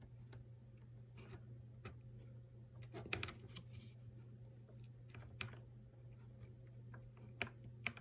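Faint, irregular clicks of a Maytag dishwasher's start-button switch actuating as the button is pressed on the removed control panel. The switch only connects when the panel behind it is held up by hand, because the plastic support under the button has failed.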